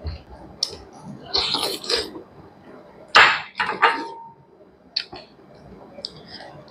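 Close-up eating sounds from people eating rice noodles and spicy salad by hand: slurping and chewing in a few short irregular bursts, the loudest about three seconds in. Just before the four-second mark there is a brief ringing note, like a small bowl being knocked.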